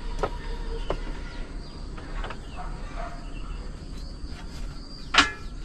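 Outdoor ambience with faint, scattered chirps of small animals such as insects or birds, and a few short, sharp knocks; the loudest knock comes about five seconds in.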